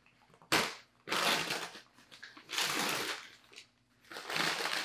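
Newspaper wrapping crinkling and rustling as it is unfolded by hand, in four bursts: a short sharp one about half a second in, then three longer ones.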